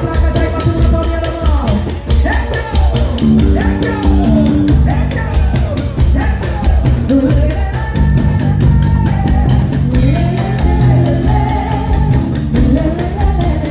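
Live band music: a singer's voice over electric guitar, drums and hand percussion, with a steady driving beat.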